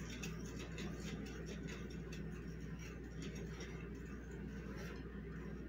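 A whisk stirring a dry flour mixture in a glass bowl: faint, irregular light ticks and scrapes against the glass, over a low steady hum.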